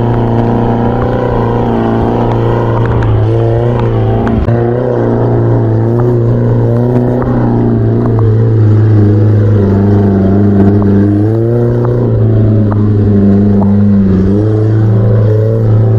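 Off-road vehicle's engine running under load, its pitch rising and falling as it revs.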